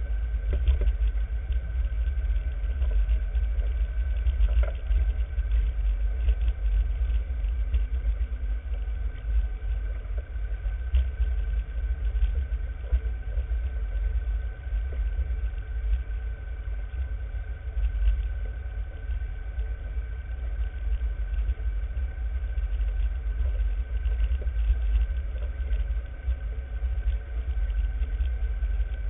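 Off-road vehicle driving along a rough trail: a steady low engine rumble that keeps rising and falling with the bumps, with a faint steady whine above it.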